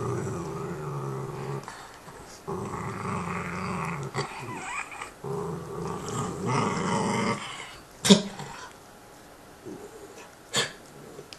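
Dog growling over a bone in long, low rumbles of a few seconds each with short pauses between, while gnawing it. Two sharp knocks later on, the first about eight seconds in the loudest.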